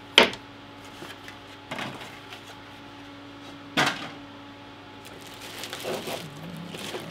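Unboxing handling noise: a sharp knock right at the start as a fan is set down on the table, two more knocks about 2 and 4 seconds in as the box and parts are handled, then a plastic bag of mounting hardware rustling and crinkling near the end.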